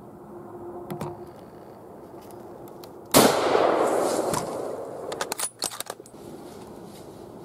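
A single rifle shot about three seconds in, its report rolling away in a long echo for about two seconds. A quick run of sharp clicks and rustles follows.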